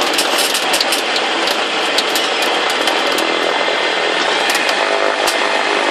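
Jet Fox light aircraft's engine running, heard as a steady loud buzz inside the cabin, with a rapid crackle of clicks in the first half.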